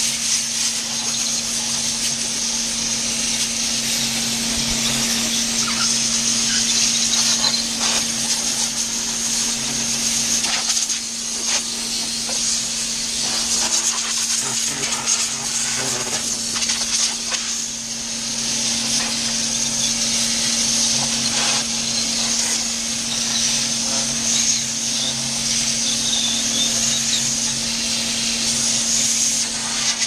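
Walk-in cooler condensing unit running: a steady hum from the compressor under a continuous hiss, with a few light knocks of hoses and gauges being handled.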